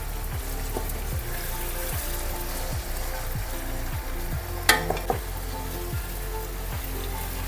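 Chicken pieces sizzling as they fry in a chembu pot while being turned over, with a sharp clank of a utensil against the pot nearly five seconds in.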